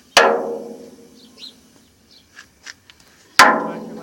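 A barrel struck twice, about three seconds apart, each knock ringing on and fading over about a second. Faint bird chirps between the knocks.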